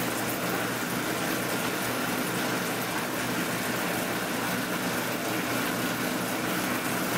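Noodle dough-sheeting machine running, its motor and rollers making a steady hum as the sheet of dough feeds off the rolls into the rollers.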